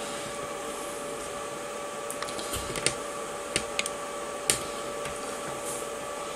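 A steady hum with two tones under a faint even hiss. A few light clicks and taps come about two to four and a half seconds in.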